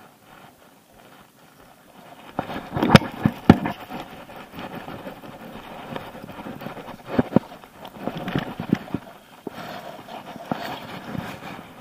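Handling noise from a baitcasting rod and reel being worked and cast: scattered sharp clicks and knocks, the loudest a pair about three seconds in, and more from about seven to nine seconds.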